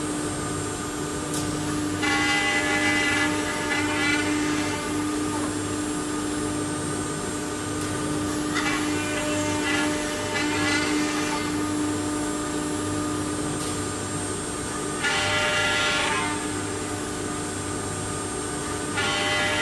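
STYLECNC STM1325CH CNC router spindle machining a wooden door panel: a steady machine hum, with four louder, higher-pitched cutting passes of one to three seconds each, roughly every six seconds.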